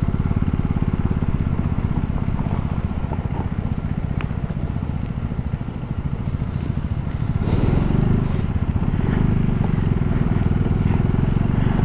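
KTM Duke 390's single-cylinder engine running as the motorcycle is ridden slowly over a loose gravel road, growing a little louder about two-thirds of the way through.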